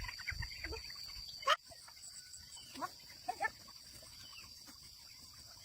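Insects, such as crickets, keeping up a steady high-pitched drone, with scattered short squeaky calls over it and one sharp click about a second and a half in.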